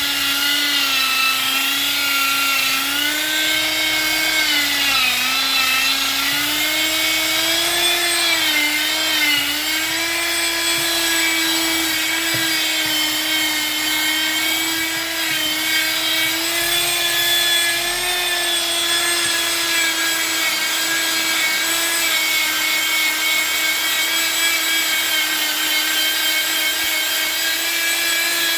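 Bosch wood router motor running at high speed with a steady whine. Its pitch sags a few times in the first ten seconds as the bit cuts into the wood, then holds nearly steady.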